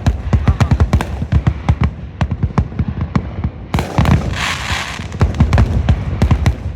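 Fireworks finale: many bursts going off in rapid succession, several booms a second, overlapping. A burst of hiss joins in about four seconds in.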